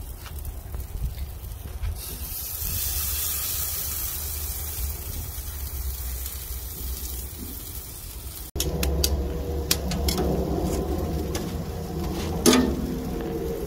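Marinated chicken legs sizzling on a charcoal grill grate over very hot coals. After a cut about eight seconds in, the burning charcoal crackles and pops, with one louder pop near the end.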